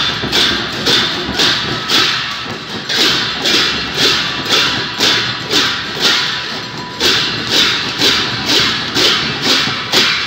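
Newar dhimay barrel drums and large hand cymbals played together in a steady processional rhythm. The cymbals clash about twice a second, each clash ringing and dying away, over dense drum beats.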